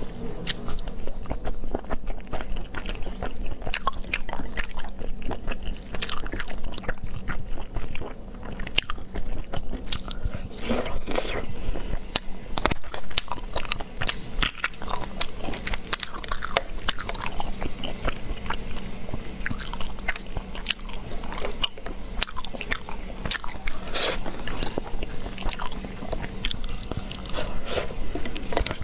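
Close-up eating sounds from someone eating sea snails: chewing and wet mouth smacks, with many sharp clicks throughout.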